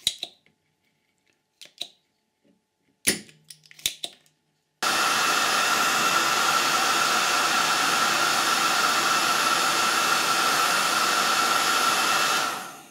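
Cheap hot-air heat gun blowing steadily, a loud even rush with a steady whine in it, heating the board to solder in new output transistors. It starts abruptly about five seconds in and dies away shortly before the end, after a few light clicks and taps.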